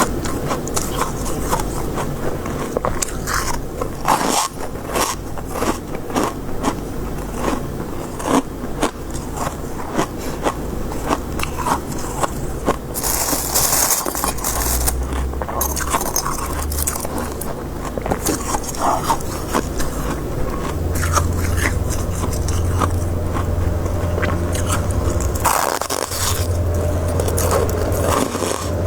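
Close-miked crunching and scraping of soft white shaved ice or freezer frost being bitten and chewed, a dense run of small crackles. A low steady hum joins in about two-thirds of the way through.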